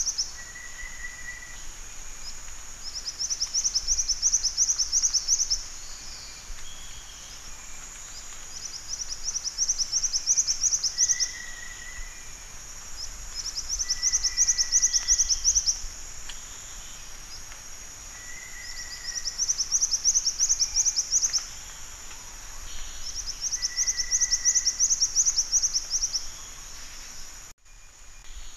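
Black-winged flycatcher-shrike calling: a high, fast trill of about two seconds, repeated every five seconds or so, with short lower notes between, over a steady high-pitched hum. The sound breaks off briefly near the end.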